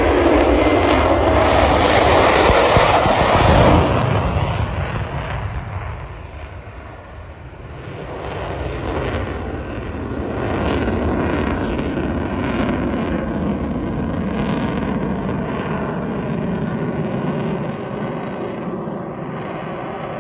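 Fighter jet flying past: loud jet engine noise for about four seconds, dipping briefly, then a steady, somewhat quieter jet sound.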